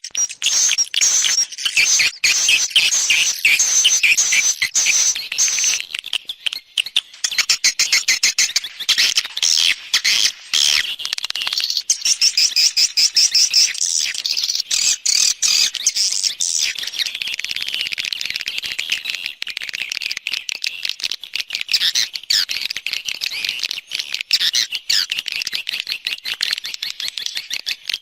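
Swiftlet calls from a swiftlet-farming lure recording, the 'external' sound played outside a bird house to draw swiftlets in. Dense, rapid high chirps and twitters overlap without a break.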